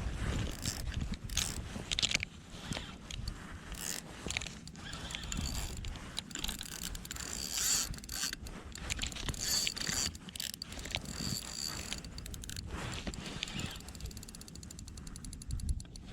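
Fishing reel being cranked to bring in a hooked fish: the reel's gears whir and click, with a fast, even ticking near the end.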